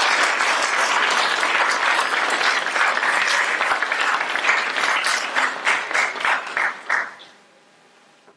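Audience applauding, the applause thinning to a few scattered claps and dying out about seven seconds in.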